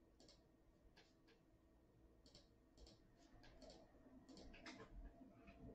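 Near silence with faint, scattered clicks from working a computer, about a dozen spread through the few seconds.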